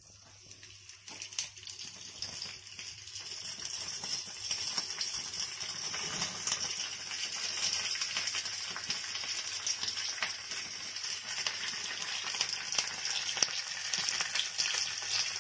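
Curry leaves sizzling and crackling in hot coconut oil in a small iron tempering ladle. The crackle swells over the first few seconds after the leaves go in, then stays steady.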